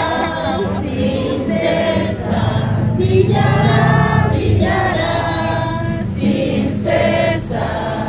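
A group of voices singing a hymn together, in several sustained phrases with short breaks between them.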